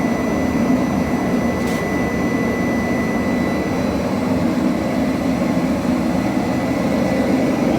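Freshly lit gas forge furnace running with its combustion-air blower: a steady rushing roar. A faint thin high tone fades out about halfway through.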